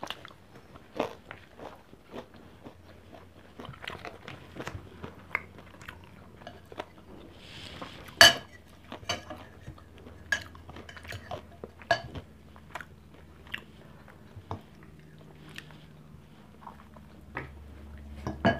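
Close-up chewing and biting of a mouthful of rice and fried pork chop, with scattered clicks of a fork and serving spoon against plates and a ceramic bowl; one sharper clink about eight seconds in.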